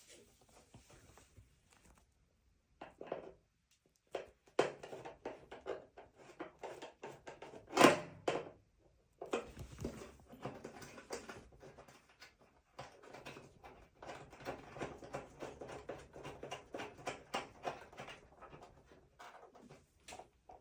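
A metal access cover being taken off an electric water heater to reach the thermostat and heating element: scattered clicks and rattles as it is handled, with one louder clatter about eight seconds in.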